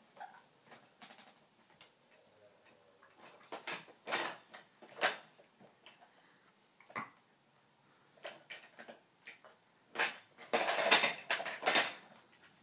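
Baby hiccuping: short, sharp hiccups about a second or more apart, then a louder, quicker run of sounds about ten seconds in.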